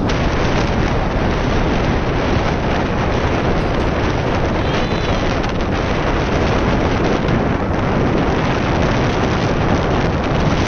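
Wind buffeting the microphone at the bow of a moving sightseeing boat: a loud, steady rush of noise.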